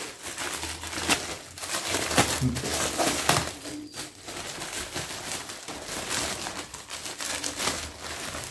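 Plastic shipping bag crinkling and rustling in irregular bursts as it is handled and opened and a garment is pulled out.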